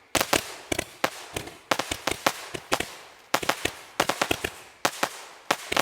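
A 210-shot consumer fireworks cake firing: a fast, uneven run of sharp cracks, about three a second, often several at once, each fading quickly.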